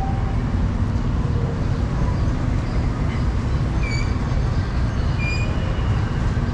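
Steady low rumble of outdoor urban background noise, with two faint short high chirps about four and five seconds in.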